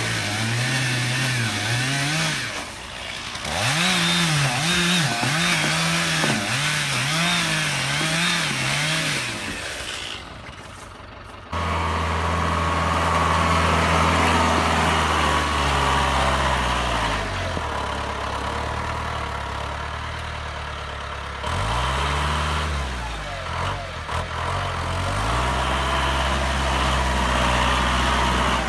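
An engine revving up and down about once a second. After an abrupt change, the New Holland 2120 tractor's diesel engine runs steadily, its pitch dipping and recovering twice.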